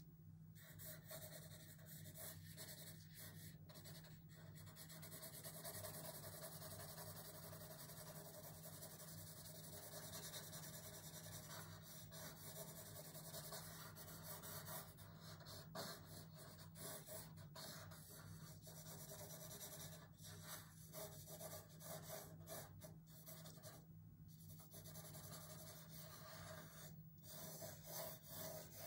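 Faint scratching of a graphite pencil shading on drawing paper, coming and going in short strokes, over a low steady hum.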